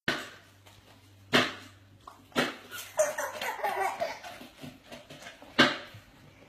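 Dry dog kibble rattling in a plastic storage bin as a toddler's hands scoop and drop it, in several short, sharp rattles. A brief wavering voice-like sound comes between about three and four seconds in.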